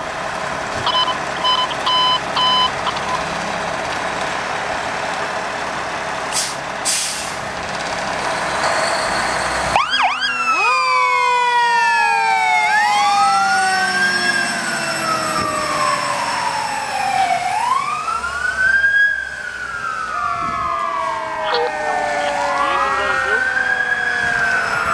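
Fire ladder truck running as it pulls out, with four short beeps about a second in. About ten seconds in its sirens come on suddenly: a wail that sweeps slowly up and down every few seconds, over a second siren tone that falls again and again.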